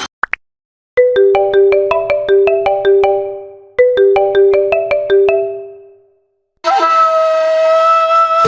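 Ringtone music: a short melody of quickly fading pitched notes, played twice, each phrase dying away at its end. About six and a half seconds in, another ringtone starts with held synthesizer tones.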